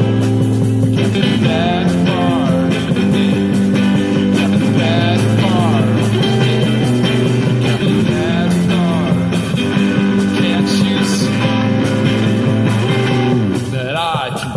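A busking trio plays live: strummed guitar, a wavering clarinet or voice melody, and a fast bucket-drum beat.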